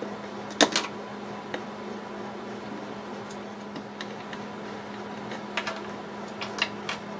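Sharp little metallic clicks and taps of small steel hinge screws and brass-plated hinges being worked off a clock case's wooden door with a small screwdriver and set down on a wooden bench: a loud pair of clicks about half a second in, one more a second later, then a few quick clusters near the end.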